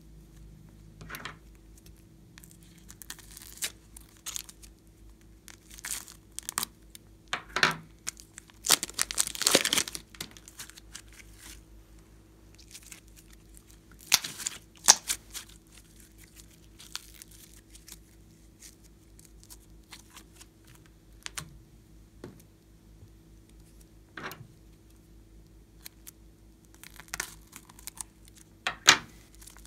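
A plastic piping bag full of slime crinkling and crackling as hands squeeze and work it, the slime squelching inside and out of the tip. The crackles come irregularly, thickest about nine to ten seconds in, with a few sharp clicks around fifteen seconds.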